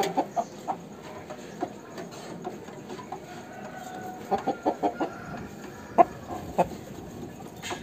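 Aseel chickens clucking in short separate calls, with a quick run of several in the middle and the loudest single cluck about six seconds in.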